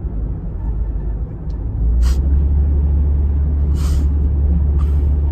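Car road and engine rumble heard from inside the cabin while driving, a steady low drone that grows louder about two seconds in. Three short hisses cut through it at about two, four and five seconds.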